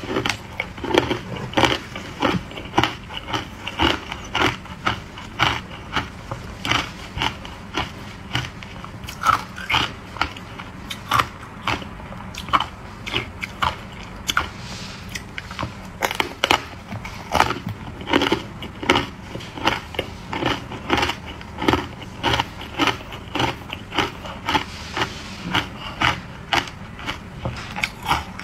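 Hard ice cubes coated in matcha powder being bitten and chewed: a steady run of sharp, crisp crunches and cracks, about two to three a second.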